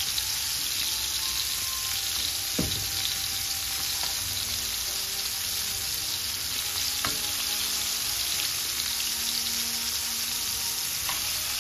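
Flour-dusted meatballs sizzling steadily in olive oil in a stainless steel skillet, with three sharp clicks of a metal spoon against the pan as they are turned.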